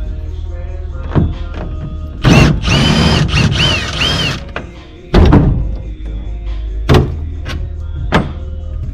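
Power-tool noise working on bolts, a loud stretch with a whine that rises and falls several times, among sharp metal clanks and thunks. Background music and a steady low hum run underneath.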